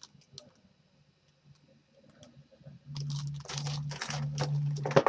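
Plastic packaging crinkling and rustling as it is handled: a few faint clicks, then from about three seconds in a dense run of loud crackling bursts, sharpest near the end.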